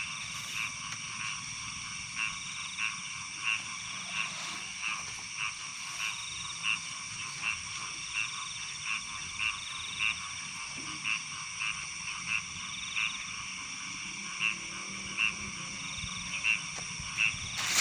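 Frog calling with short, evenly spaced croaks, about three every two seconds, over a steady high-pitched background drone.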